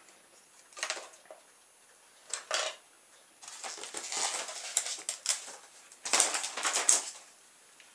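Handling noises from hard plastic parts being pulled out of a polystyrene foam packing tray: a couple of brief knocks, then longer scraping and rubbing against the foam, loudest about six seconds in.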